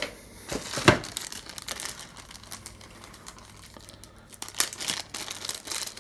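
Packaging crinkling and rustling while small accessories are unpacked, in irregular crackles. There is a sharp loud crackle about a second in and another burst of crackling near five seconds.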